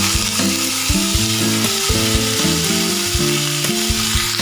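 Cut potatoes sizzling in hot oil with black cumin seeds in a kadai, a steady loud hiss.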